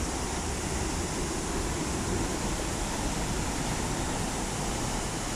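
Whitewater rapids of a fast river rushing steadily: a continuous, even wash of churning water.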